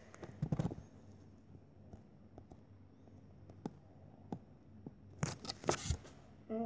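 Finger or stylus tapping and rubbing on a tablet touchscreen while drawing: scattered light taps, with short scratchy rustles near the start and again about five seconds in.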